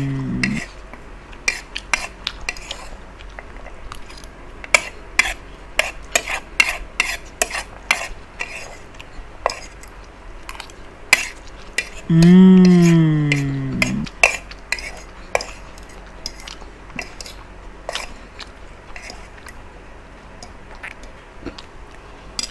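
Metal spoon and fork clicking and scraping against a ceramic plate, in many short sharp clinks as the last of the fried noodles are scooped up. About twelve seconds in, a loud drawn-out sound falling in pitch and lasting about two seconds; a shorter one fades out just after the start.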